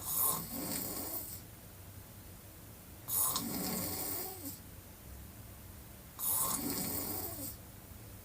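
A woman snoring with her mouth wide open: three snores about three seconds apart, each lasting a little over a second, with quieter breathing in between.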